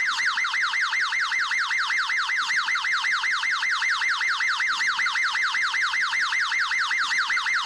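Electronic police car siren in a rapid yelp, its wail sweeping up over and over several times a second in a steady unbroken cycle.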